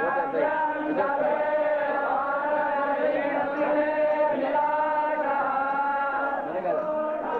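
A group of men chanting Vedic verses together in a veda goshthi recitation, in long held notes that shift in pitch every second or so.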